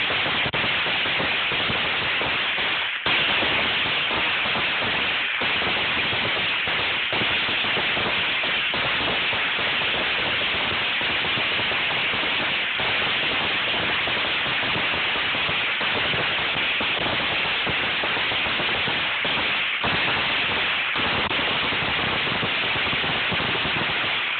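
Many fireworks crackling and popping at once, a dense, steady barrage that doesn't let up.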